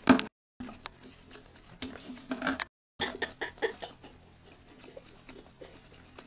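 Gerbils scrabbling about on paper bedding and a cardboard egg-carton toy: scattered light scratches, rustles and clicks. A loud bump comes right at the start, and the sound drops out to dead silence twice for a moment.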